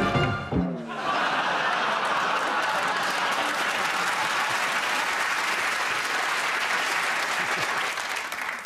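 Studio audience applauding steadily for several seconds, dying away near the end. The first second holds the tail of the game-show clock music.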